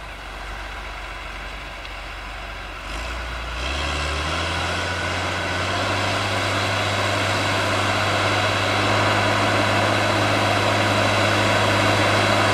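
Farm tractor's diesel engine working under load, pulling a short disc harrow, coming closer and growing steadily louder. Its engine note steps up about three to four seconds in, then holds steady.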